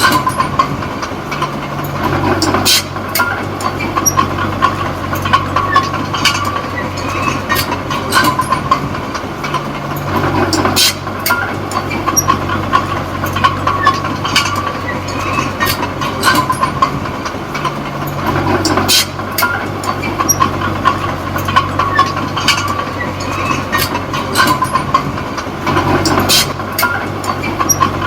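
Small D20P crawler bulldozer's diesel engine running under working load, its note shifting in a repeating cycle about every eight seconds as it pushes soil, with frequent metallic clanks from the tracks.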